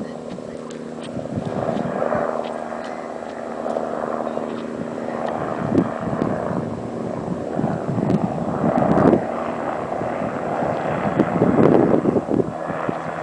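Approaching MBB Bo 105 (Bölkow) helicopter heard from a distance, a steady drone of rotor and turbines that swells and fades irregularly.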